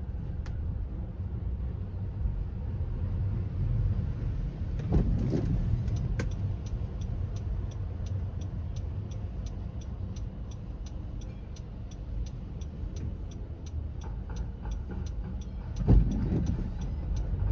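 Steady low road and engine rumble of a car driving on wet city streets, heard from inside the car. From about six seconds in, a turn-signal indicator ticks evenly, about three ticks a second. Two thumps come through, one about five seconds in and a louder one near the end.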